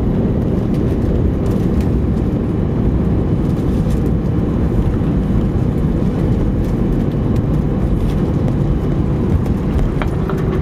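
Steady low rumble inside the cabin of an Airbus A319 rolling out on the runway after landing: engine and rolling noise heard through the fuselage, with a faint steady hum.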